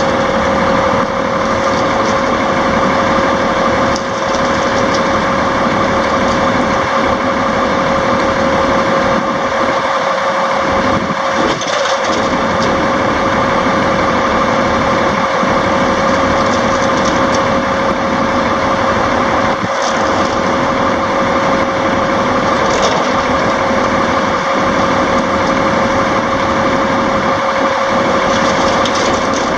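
Cummins M11 inline-six diesel engine of a 1998 International Paystar 5000 mixer truck idling steadily, with a constant whine over the engine note.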